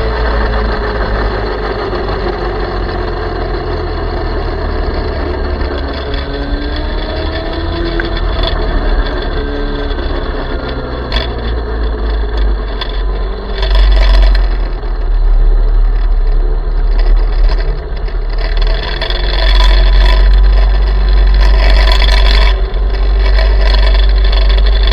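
Small electric minibike's motor whining while riding, its pitch rising and falling with speed, under heavy wind buffeting on the microphone that grows louder about halfway through.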